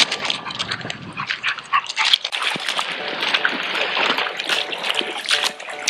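Dogs wading into a shallow, stony river, their paws splashing in the flowing water. A dog whimpers briefly now and then.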